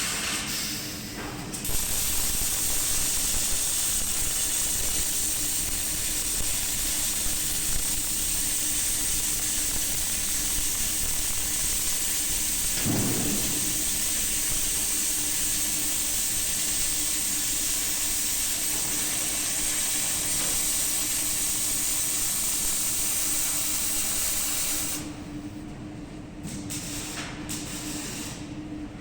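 MIG/MAG welding arc burning steadily with a continuous hiss and crackle, striking about two seconds in and cutting off sharply about 25 seconds in. A steady low machine hum runs underneath.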